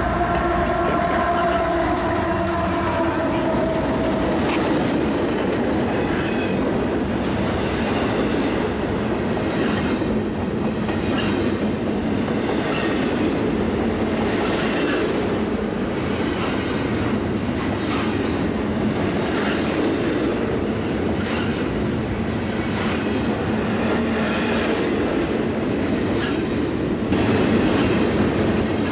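A diesel freight train's horn sounds as the locomotive passes, its pitch dropping slightly, and fades out about four seconds in. Then the intermodal cars roll by in a steady rumble, the wheels clicking irregularly over the rail joints.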